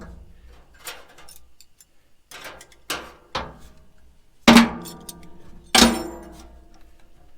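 Metal clanking: a series of knocks, the two loudest near the middle each ringing on for about a second.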